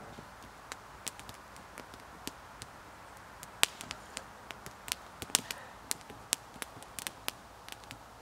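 Wood campfire crackling, with irregular sharp snaps and pops that come more often and louder about halfway through.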